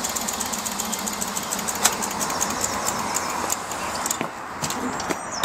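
Compact Servis washing machine running on test, its motor going with a rapid, even metallic ticking. The ticking thins out about four seconds in.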